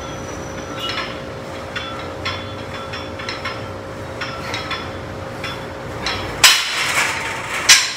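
Cable crossover machine worked through a set of cable flies: repeated light metallic clinks from the weight stacks and cables, over a steady low hum. Near the end comes a louder, noisier clatter with two sharp peaks.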